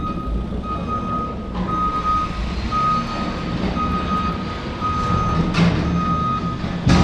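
A vehicle's back-up alarm beeping about once a second, one steady tone, over a low engine rumble.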